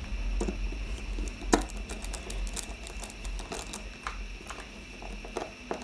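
Small screwdriver turning a tiny screw into the plastic back case of a DZ09 smartwatch: scattered light clicks and ticks, with one sharper click about a second and a half in.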